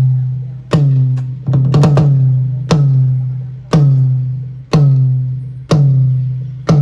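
Deep drum hits played back through a large PA loudspeaker system, about one a second, each a sharp attack followed by a long booming low tail, with a quick flurry of hits about a second and a half in.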